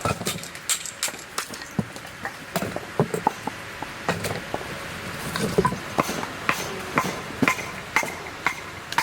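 Irregular knocks and clacks, about one or two a second, some ringing briefly: hard objects such as wood or camp gear being handled and set down.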